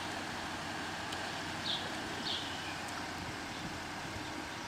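Chevy S10 pickup running low and steady in the background as it is eased into position, with a bird chirping briefly twice.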